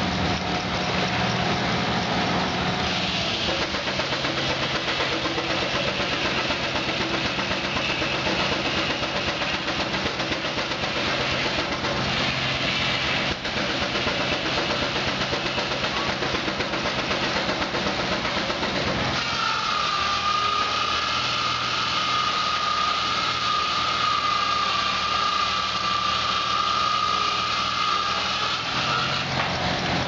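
Keck-Gonnerman steam traction engine running under belt load, driving a sawmill, a steady mechanical din. A steady high-pitched tone joins it about two-thirds of the way through and stops near the end.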